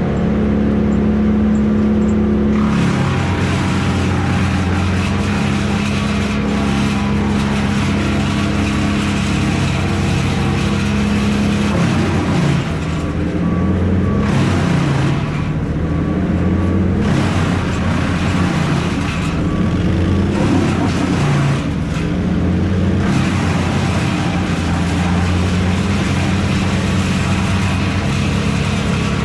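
A large engine running steadily, its pitch dipping and rising a few times, with a loud rushing noise that cuts in and out over it.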